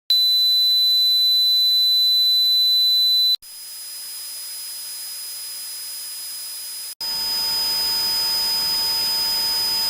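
Simulated tinnitus sounds played one after another, each a steady high-pitched tone over a hiss. The first also has a low hum under it; about three seconds in it switches abruptly to a quieter hiss with a higher tone, and a few seconds later to a louder hiss carrying both a high and a lower steady tone.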